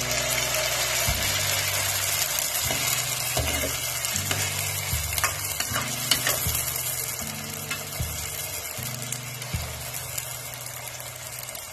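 Mini Moghlai paratha deep-frying in hot oil in a kadai: a steady sizzle that eases off a little toward the end, with a few light clicks.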